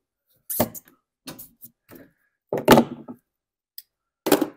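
A handful of short clicks and knocks as hands work the fuel hose and its clamps off an old inline fuel filter on a small engine. The loudest knock comes a little under three seconds in, and another comes near the end.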